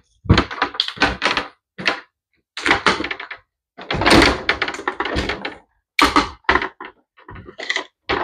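Clips being taken off a folded, aluminium-framed portable display counter, and its panels knocking and clattering as they are handled: an irregular run of sharp clicks and knocks, busiest around four seconds in.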